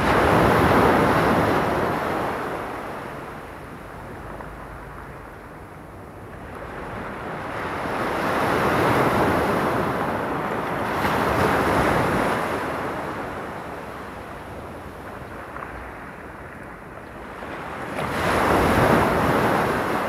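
Small waves breaking on a cobble beach and washing back, in slow surges that swell and fade: one at the start, a longer one in the middle, and another near the end.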